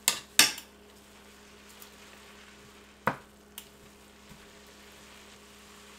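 Glass noodles with chicken and vegetables stir-frying in a pan: a soft, steady sizzle, with a few sharp clicks of the stirring utensil against the pan, the loudest about half a second in and two more around three seconds in.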